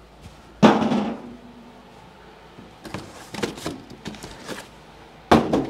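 Cardboard boxes of drum hardware being handled and pulled out of a larger carton: a sharp knock with a short ringing tail about half a second in, rustling and scraping of cardboard, then another loud knock near the end.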